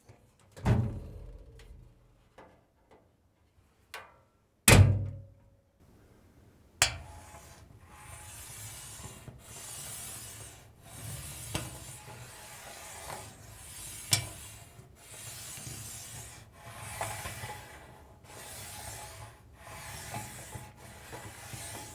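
Two loud sharp knocks, then a steady back-and-forth rasping, one stroke about every second, like sanding or sawing.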